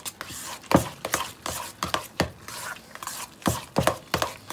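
Thick mashed-potato filling being stirred hard in a stainless steel bowl, the utensil knocking against the bowl in quick, irregular strokes, about two or three a second, with scraping between them.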